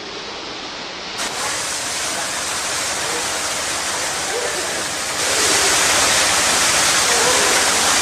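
Water pouring steadily from a swimming pool's wall waterfall feature into the pool, with a swimmer splashing; the rushing gets louder about five seconds in.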